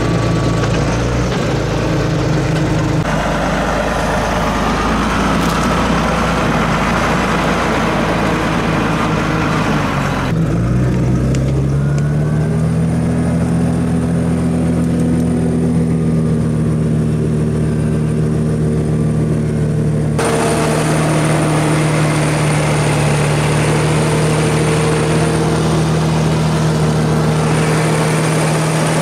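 Fendt Favorit 612 LSA tractor's diesel engine running steadily while pulling a mouldboard plow through the soil. About ten seconds in, the engine note climbs in pitch and then holds. The sound shifts abruptly a few times.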